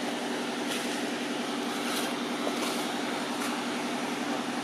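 Steady low drone of a running engine, holding even throughout, with a few faint high ticks over it.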